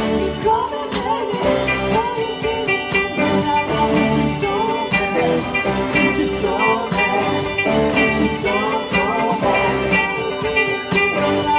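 Pop band music with a steady drum beat and a melody over it.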